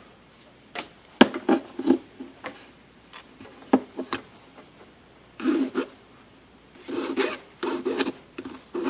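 Hand file rasping across the solid copper tip of a cheap soldering iron, in short irregular strokes with pauses, some single and some in quick runs near the end. The file is cutting back a burned, malformed tip to reshape it.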